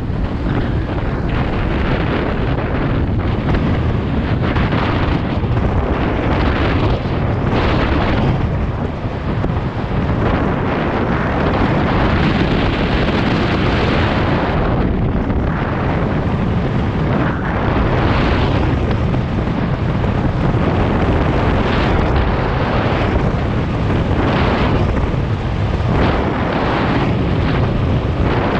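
Wind buffeting a GoPro Hero 7 Black's microphone, a loud rumble that swells in gusts every few seconds.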